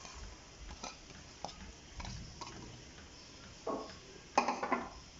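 Boiled watermelon-rind cubes being tipped from a plastic bowl into a nonstick pan of boiling sugar syrup, with a low bubbling underneath and scattered light clicks of bowl against pan. The loudest sound is a sharp clatter about four and a half seconds in.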